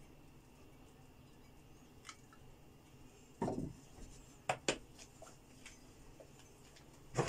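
Non-stick wok being shifted on an electric stove's hotplate: a few scattered knocks and clicks of the pan against the hob, a dull thump about three and a half seconds in, two sharp clicks a second later and a louder knock at the end.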